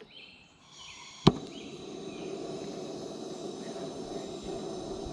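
Gas forge being lit: a single sharp pop as the burner ignites about a second in, then the burner running with a steady rushing noise.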